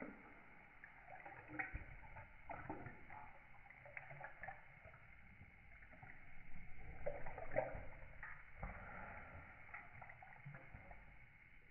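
A Podenco lapping water from a stainless steel bowl: faint, irregular wet splashes and slurps of the tongue in the water, loudest a little past the middle.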